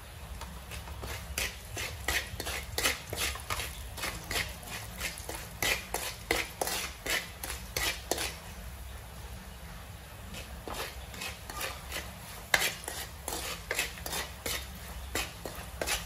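Wooden spatula scraping and stirring against a metal wok while stir-frying chopped garlic and spring onion, in quick strokes of about two a second with a short pause about halfway through.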